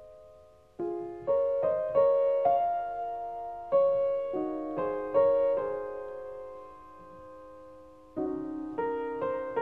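Background piano music: a slow melody of single struck notes left to ring and fade, coming in just under a second in, holding on a sustained chord through the middle, and picking up again with a new phrase near the end.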